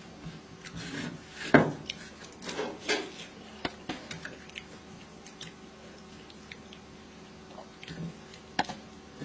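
Eating by hand from a plate: fingers mixing rice and fish, with scattered clicks and smacks of plate and mouth. The loudest is a sharp click about a second and a half in, and the sounds thin out to a few small ticks after about four seconds.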